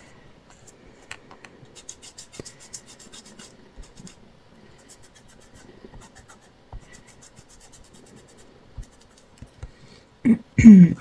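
Foam finger daubers dabbing and rubbing ink through a plastic stencil onto paper, a faint dry scratchy tapping in quick runs. A brief loud voice sound near the end.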